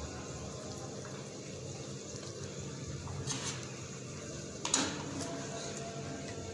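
Cooked chicken and onions being scraped from a pan onto a glass serving plate: a short scrape about three seconds in, then a sharp clink of cookware near five seconds, over a steady kitchen hum.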